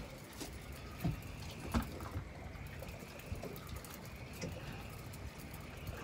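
Water lapping against a small boat's hull with wind on the microphone, and a few soft knocks about one and two seconds in.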